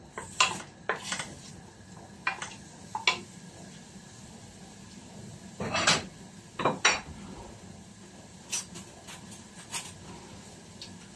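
Wooden spoon stirring onion in a stainless steel pot, clicking and scraping against the metal in quick strokes over the first three seconds. Two louder knocks come about six to seven seconds in as the spoon is left leaning against the rim, then a few lighter ticks.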